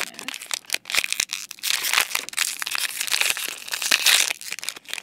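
Crinkly plastic wrapper of a Disney Doorables blind pack being torn open and crumpled by hand: a dense run of sharp crackles that comes in several louder spells.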